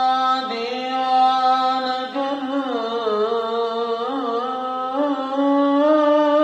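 A man's voice chanting the Friday pre-dawn sela from a minaret, in long held notes with melismatic turns. The pitch steps down about two seconds in and wavers through ornaments, then settles on a higher held note near the end.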